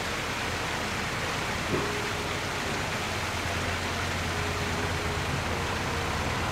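Water rushing through the upper gate paddles of a canal lock as the lock fills, a steady even rush. A faint low hum lies underneath, and there is a single short knock about two seconds in.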